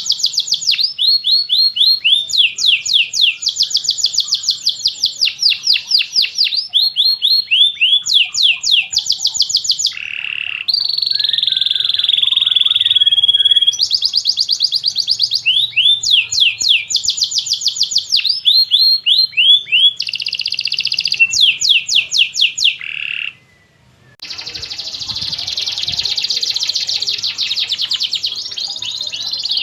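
Domestic canary singing: long rolls of very rapid repeated falling notes, changing to a new trill every second or two, with a brief break about three-quarters of the way through.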